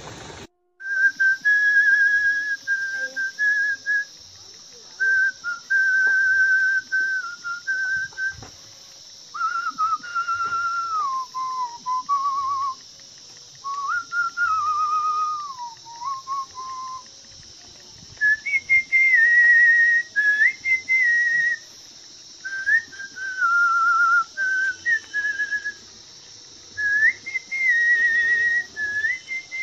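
A man whistling a slow tune: single clear notes held and stepped up and down in phrases of a few seconds, with short pauses between phrases.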